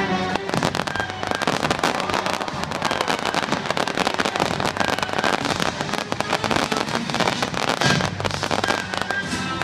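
Aerial fireworks crackling and popping: many small bursts go off in rapid, overlapping succession, starting about half a second in and thinning out near the end.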